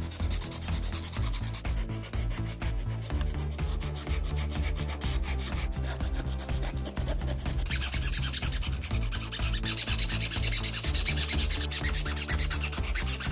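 Hands rubbing and scrubbing the dirty stator and armature of an electric disc grinder's motor as they are cleaned, with a louder, harsher rasp like sanding from about eight seconds in to near the end.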